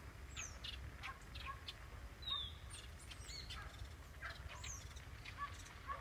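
Small songbirds chirping and calling: faint, scattered short chirps with a few quick falling whistles.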